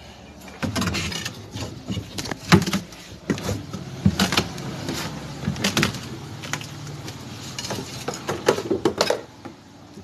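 Blue plastic top rim of a chest deep freezer being pried loose with a screwdriver and worked free by hand: a run of irregular clicks, knocks and scrapes.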